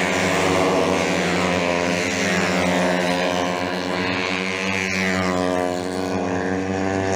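Several racing motorcycle engines running hard as a pack of bikes goes past on a dirt oval, the pitch climbing and falling as the riders accelerate and ease off.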